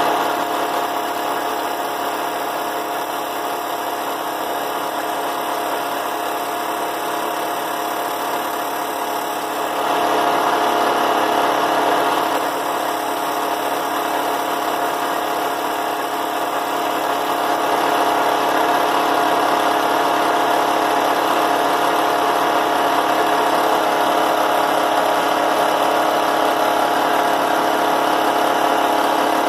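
Drill press motor running steadily, spinning a small diamond wheel for sharpening a carbide end mill, a constant hum that gets louder about a third of the way in and again a little past halfway.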